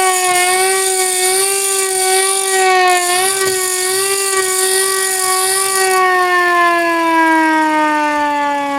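Tornado warning siren sounding one held tone with a slight waver, then winding down, its pitch falling steadily from about six seconds in.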